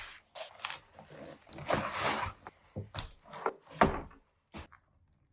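Irregular handling sounds: knocks and clicks mixed with rustling, the loudest knock just under four seconds in.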